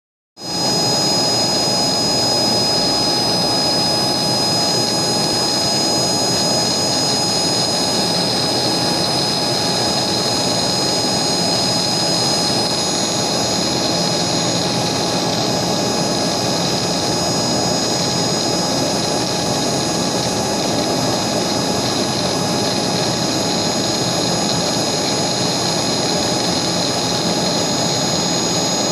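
High-speed spindle of a CNC engraving machine, running steadily while a micro end mill cuts a metal mould block. It is a steady high whine of several held tones over an even rushing noise.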